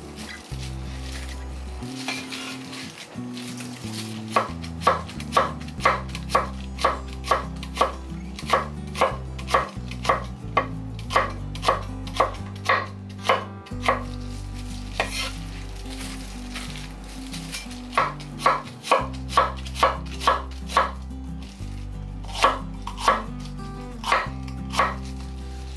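Cleaver slicing onion on a wooden cutting board: sharp knocks of the blade on the board, about two a second, in runs with short pauses between.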